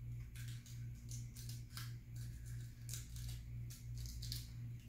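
Paper and sticky tape being handled: small paper pieces crinkling and rustling in quick, irregular clicks as they are pressed and taped together, over a steady low hum.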